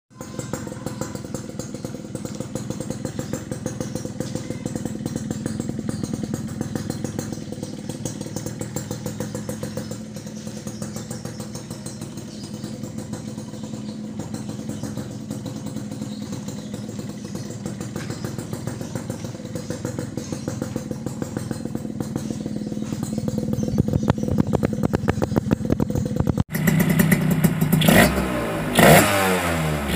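Suzuki jet-cooled two-stroke motorcycle engine idling with an even pulsing beat. Near the end it is revved in a few quick throttle blips, rising and falling in pitch.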